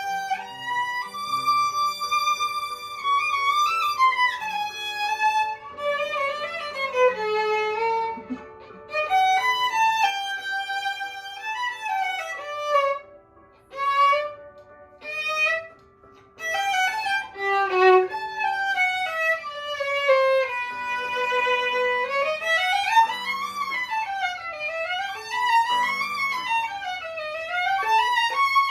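Violin played by an adult learner in practice: held notes and stepwise melodic phrases with short pauses, then fast up-and-down scale-like runs over the last few seconds.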